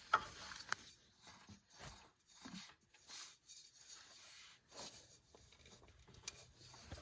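Soft, scattered clicks, taps and rustles of parts being handled, with the sharpest click just after the start.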